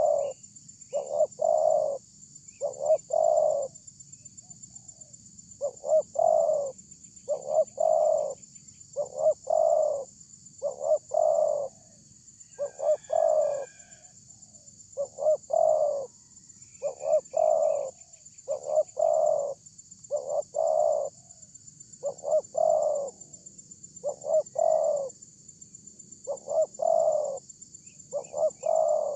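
Spotted dove cooing loudly in its rhythmic advertising call: phrases of two or three short notes and a longer note, repeated about once a second with short pauses. A steady high-pitched hiss runs beneath, and a few faint chirps come from other birds.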